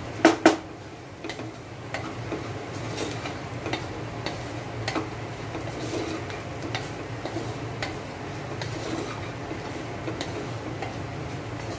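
Wooden spatula stirring a dry stir-fry of bitter gourd and grated coconut in a black-coated pot, scraping and tapping the pot in light, irregular clicks. There are two sharp knocks near the start, over a low steady hum.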